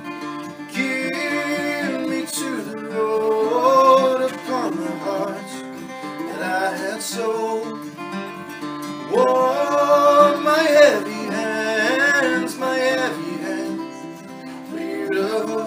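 Music: acoustic guitar strummed through the opening of a folk song, with a wavering melody line laid over it in two long phrases.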